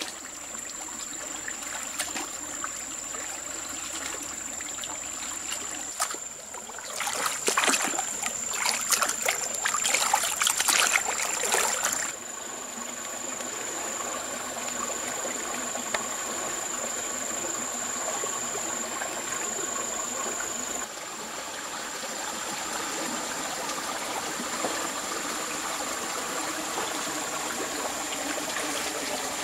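Running water of a stream, a steady rushing flow with a thin steady high tone underneath. For about five seconds near the start it turns louder and choppier, with splashing.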